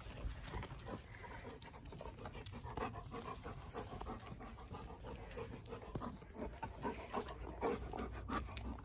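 A golden retriever panting quickly and steadily.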